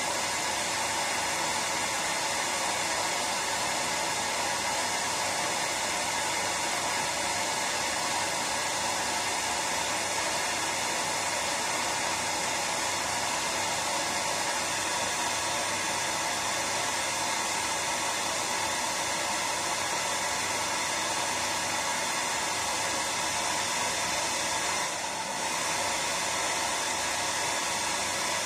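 Hair dryer running continuously: a steady airy hiss with one brief dip in level near the end.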